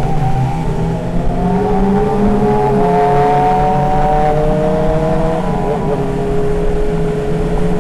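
Motorcycle engine running under way, its pitch climbing slowly for several seconds, briefly dipping about five and a half seconds in, then holding steady. Wind rumbles on the microphone underneath.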